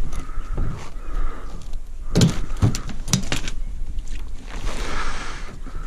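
A handful of irregular knocks and clatters over a low steady rumble, with a short rustling hiss near the end.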